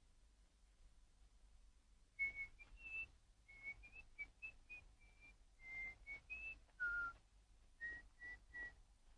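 A person whistling a short, halting tune. About two seconds in comes a run of brief notes that shift up and down in pitch, with small pauses between phrases.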